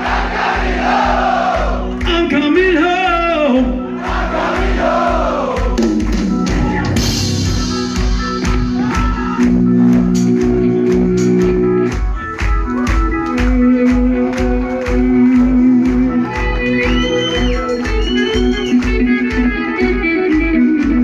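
Live progressive metal band playing loudly through a club PA, heard from among the audience. Singing with vibrato opens the stretch; after about six seconds it gives way to an instrumental passage of held chords over a steady drum beat, with a few rising bent notes near the end.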